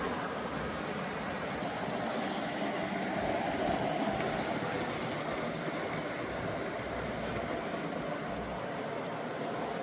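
Model Pennsylvania GG-1 electric locomotive and passenger train running on the layout track: a steady motor hum and wheel rumble.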